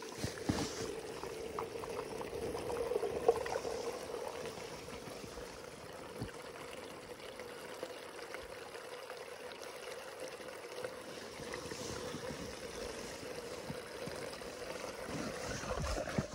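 Water pouring in a steady stream from a plastic watering can into the neck of a balloon, filling it.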